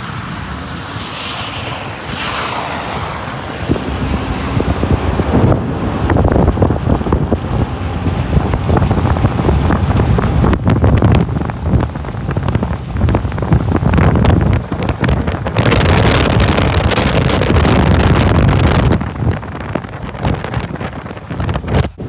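Wind buffeting the microphone: a loud, fluttering rumble that swells and eases throughout. About a second or two in, a vehicle hisses past on the wet road, its sound falling in pitch as it goes by.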